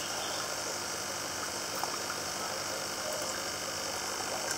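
Steady hum and hiss of an aquarium tank's submersible filter running, its outflow churning the water surface, with a few faint small ticks.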